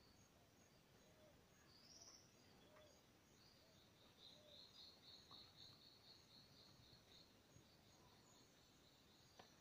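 Faint birdsong. One bird gives a rapid trill of high repeated notes that lasts about five seconds, starting about three and a half seconds in, after a short high call about two seconds in. A single soft click comes near the end.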